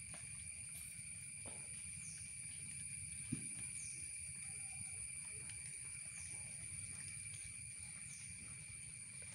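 Insects shrilling steadily in several high, unbroken tones, with short falling chirps repeating about every second, over a faint low rumble. A single small click comes about a third of the way in.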